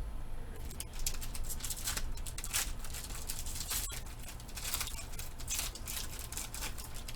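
Trading card packs and cards being handled: a run of quick crinkling and rustling.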